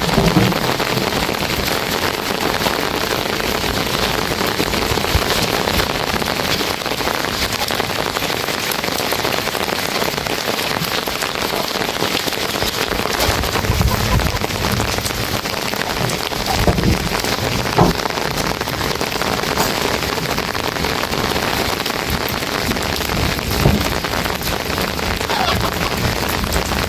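Heavy rain falling steadily, a dense hiss of drops hitting surfaces, with a few louder single knocks.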